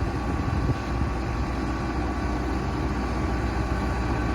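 Excavator's diesel engine and hydraulic drive head running steadily while turning a helical pile into the ground, a constant low rumble with a faint steady whine and no hammering.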